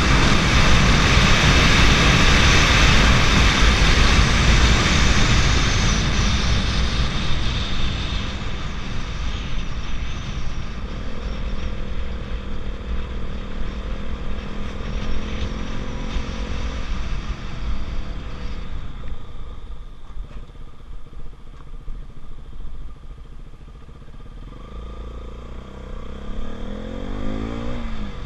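KTM RC 200's single-cylinder engine running while the bike is ridden, under a loud rushing noise that fades over the first eight to ten seconds as the engine note settles lower. Near the end the engine note rises as the bike accelerates.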